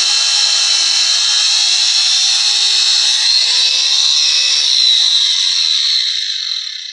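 Wonder Cut angle grinder with an abrasive cutting disc grinding through an iron pipe in a loud, steady, hissing whine. Partway through, the disc comes off the pipe and runs free, and the sound dies away near the end.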